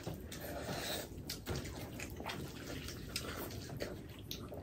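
Wet squishing and smacking as hands mash and mix rice into egg curry on steel plates, with many short clicks of chewing and lip smacks.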